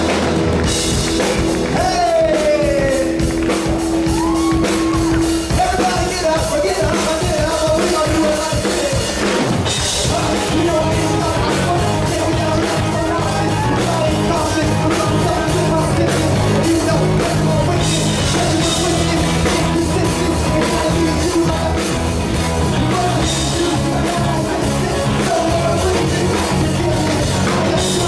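Rock music with drum kit and a singing voice, loud and steady; the band fills out with more bass about ten seconds in.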